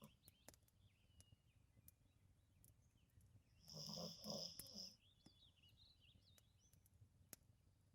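Labrador retriever snoring in its sleep: one snore about halfway through, drawn out in two or three quick pulses, between stretches of near silence with a few faint clicks.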